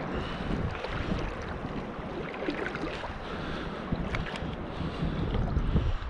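Wind buffeting the microphone, gusting harder near the end, over splashing and dripping water as a wet gill net is hauled hand over hand out of the sea into a boat.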